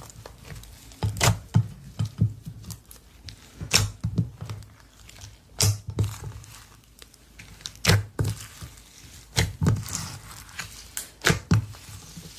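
Slime being squeezed and pressed by hand: irregular sharp pops and clicks with soft low thuds, every second or two.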